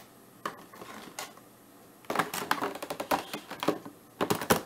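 Thin clear plastic packaging tray being handled, clicking and crackling in quick runs: a long run about two seconds in and a shorter one near the end, with a few single clicks before them.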